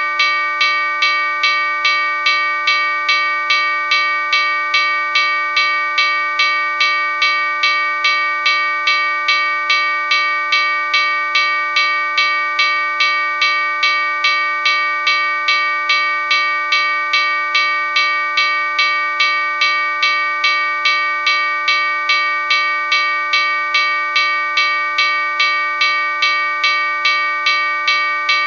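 Locomotive bell ringing continuously, struck evenly about twice a second with its ringing tones held steady between strikes.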